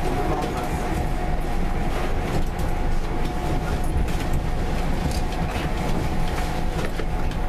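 EN81 electric train running on the track, heard from on board: a steady rumble of wheels on rail with a steady whine and scattered clicks, passing close alongside a line of open freight wagons.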